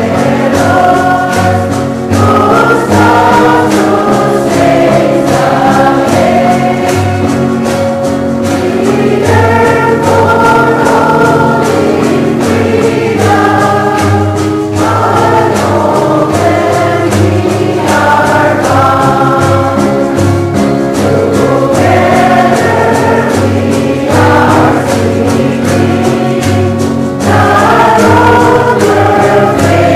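Christian choral music: a choir singing a gospel-style song with held low notes underneath.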